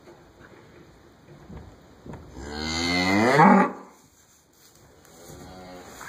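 Hereford cattle mooing: one long, loud moo that rises in pitch, then a second, softer and lower moo about a second later.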